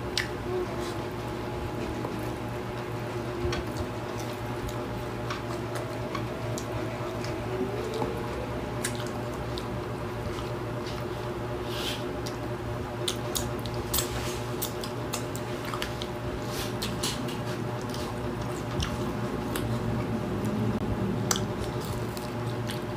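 Close-up eating sounds of two people eating by hand: wet chewing, lip smacks and sharp mouth clicks, scattered and growing more frequent after about the halfway point, over a steady low hum.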